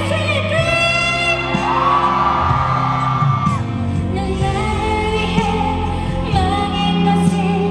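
A female pop singer sings live over band accompaniment. She holds one long note for about three seconds starting about half a second in, then goes on with the melody.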